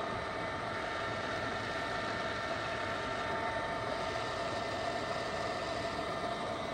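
Csepel RF 50/1250 radial arm drill running with its spindle turning at 710 RPM: a steady machine hum with several faint steady tones.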